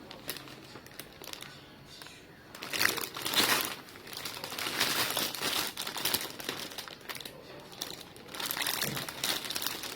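Plastic packaging crinkling and rustling as it is handled, in uneven bunches that start about three seconds in.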